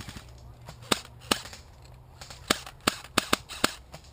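Airsoft guns firing single shots during a close-range exchange: about seven sharp, short cracks at irregular spacing, most of them bunched in the second half.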